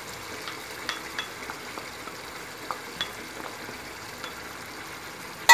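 Chicken pieces frying in oil in a pan: a steady low sizzle with a few faint ticks of a wooden spatula against the pan, ending on a sharp clink right at the end.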